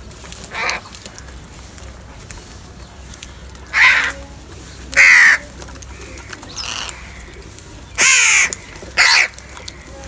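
House crows cawing: about six separate harsh caws at irregular gaps, the loudest around four and five seconds in and again in the last two seconds.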